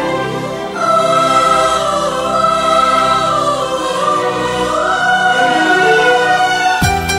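Music: the intro of a Hindi song, slow long-held melodic notes that glide gently in pitch, with a rhythmic beat coming in near the end.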